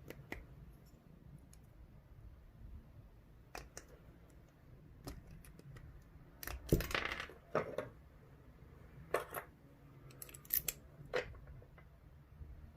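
Small metal clicks and clinks from handling a dimple euro lock cylinder and its parts while taking it apart, with a louder run of clinks about halfway through.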